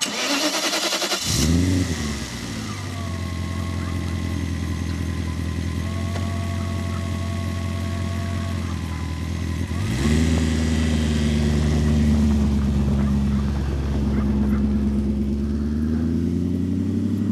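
BMW E34's V8 engine cranking for about a second and a half, catching with a flare in revs, then settling to a steady idle. About ten seconds in it flares up again and holds a faster idle, and near the end the revs climb slowly.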